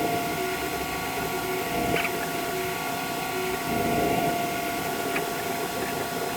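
Creality CR-M4 3D printer running: a steady fan hum with short stepper-motor tones that start and stop as the print head moves.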